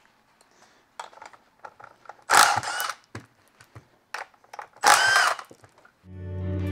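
Cordless Milwaukee Fuel power driver spinning the bar-cover nuts off a Homelite Z3300 chainsaw: two short bursts of motor whine, about two and five seconds in, with light clicks of handling between. Guitar music starts near the end.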